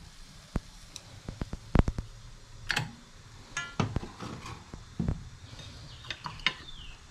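Irregular clicks and clinks of chopsticks and dishes knocking against a plate on a kitchen counter, a few of them ringing briefly.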